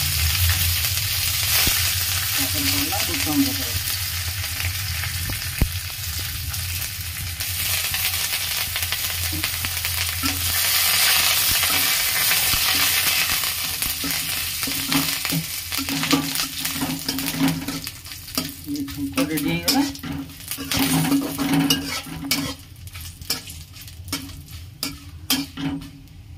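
Tempering of panch phoron, cumin, dried red chillies and green leaves sizzling hard in hot oil in an aluminium kadai, stirred with a metal spatula. The sizzle eases in the second half, and the spatula's scraping clicks against the pan come through more toward the end.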